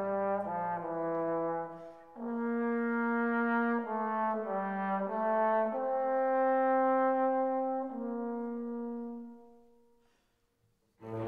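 Background music: a slow melody of long held notes that fades out about nine seconds in, followed by a brief pause and another piece of music starting just before the end.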